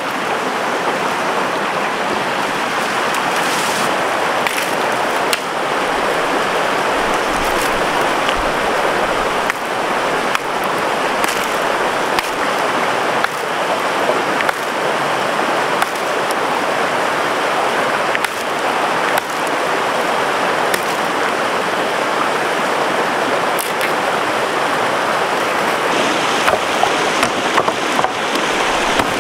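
Stream water rushing steadily, with now and then a light click or knock.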